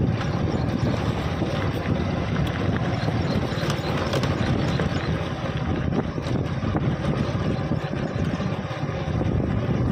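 A vehicle's engine running and wind buffeting the microphone as it travels along a rough unpaved road. A steady, noisy rumble with occasional faint clicks.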